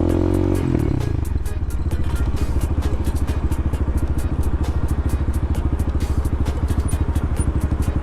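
Bashan 250 dirt bike engine running with its revs held, then dropping off less than a second in to a lower, evenly pulsing beat that carries on steadily.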